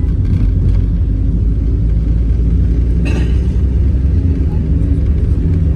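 Steady low rumble of a moving car heard from inside the cabin: engine and road noise, with a brief rushing sound about three seconds in.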